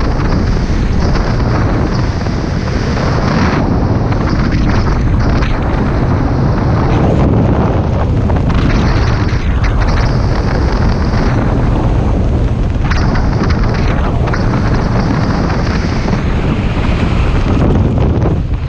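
Loud, steady rush of wind blasting across a skydiver's camera microphone, a dense rumbling roar with no breaks.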